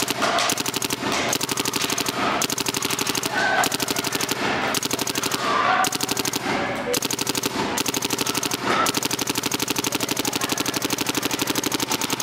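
Planet Eclipse GSL spool-valve paintball marker firing on full rapid fire. The shots come so fast they run together, with brief breaks about every second. The air tank is being emptied pod after pod in an air-efficiency test.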